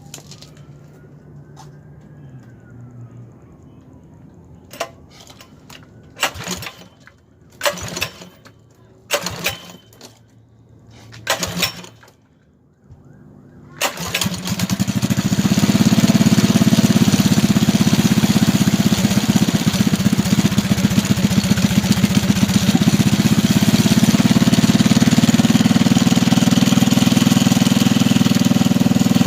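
Predator 212cc single-cylinder four-stroke engine on a mini bike being pull-started: about five short pulls, then it catches about 14 seconds in and runs steadily and loud.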